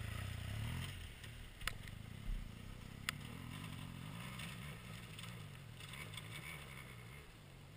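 BMW R 1200 GS boxer-twin motorcycle engine idling with a low rumble that slowly fades, with two sharp clicks at about two and three seconds in.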